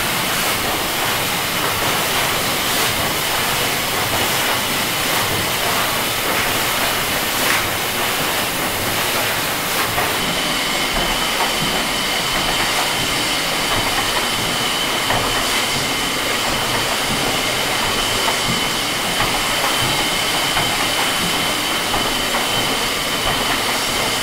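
Large cross tandem compound steam mill engine running: a steady, even wash of steam hiss and machinery noise, with a thin high steady whine joining about ten seconds in.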